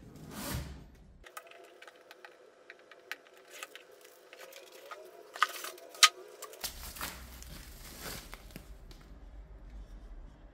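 Packaging being handled: light rustles, scrapes and clicks of cardboard and plastic-wrapped parts, with two sharper taps about five and a half and six seconds in.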